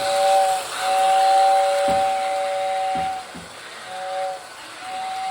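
Model train's whistle blowing a two-note chord in repeated blasts: a short one, a long one of about two seconds, another short one, then a long one starting near the end, over a steady hiss.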